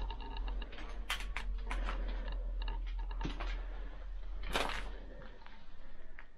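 Irregular sharp clicks and clatters of metal safety deposit box drawers and debris underfoot, with one louder clatter about four and a half seconds in.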